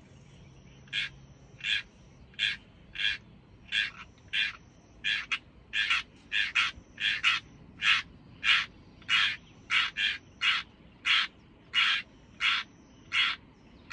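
A crow cawing over and over: short harsh caws, a little faster than one a second, starting about a second in.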